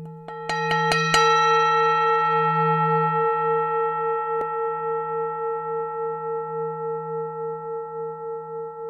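Metal singing bowl ringing with a long, slowly fading tone that wavers a few times a second. It opens with a quick run of about six bright metallic strikes in the first second or so.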